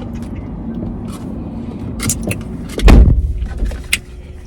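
Handling noises as chicken wing bones are cleared away: scattered light clicks and knocks, with one heavy thump about three seconds in, over a low steady hum.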